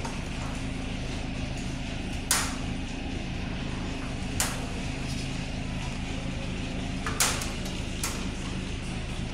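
Steady low machine hum with three sharp clicks or knocks, about two, four and seven seconds in, as a sheet-metal air-conditioner control box full of wiring is handled.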